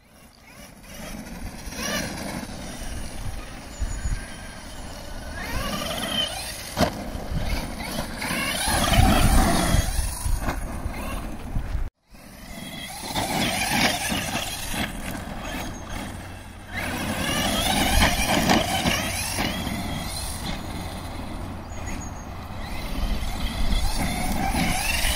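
FTX Carnage electric RC truggy's motor and gears whining, rising and falling in pitch as the throttle is worked on and off. The sound drops out briefly near the middle.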